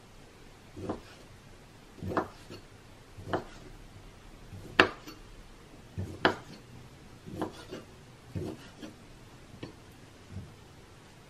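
Kitchen knife cutting an octopus tentacle on a wooden cutting board: the blade knocks on the board about once a second, with one sharper, louder knock about five seconds in.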